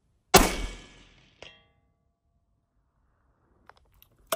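A single rifle shot from a Thompson Center Encore with a 22-inch 350 Legend barrel, firing a 147-grain full metal jacket round, with a loud crack that fades over about a second. About a second later a short metallic ring comes back as the bullet strikes the steel target at 250 yards. A sharp click is heard near the end.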